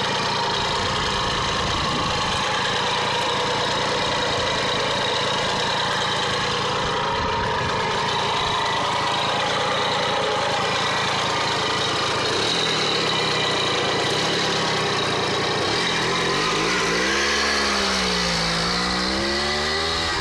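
1965 Famel Foguete moped's 50cc two-stroke engine idling steadily. About 16 seconds in, the engine revs up and down as the moped pulls away.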